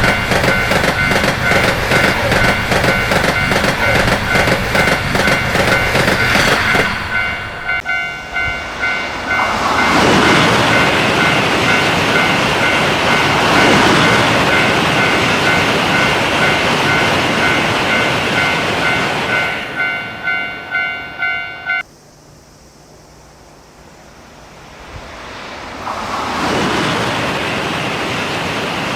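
A Japanese railroad crossing bell rings with rapid repeated strokes while a train passes with rushing noise and rhythmic wheel clatter. The sound cuts off suddenly about three-quarters of the way through. After a quieter stretch, the noise of another approaching train swells near the end.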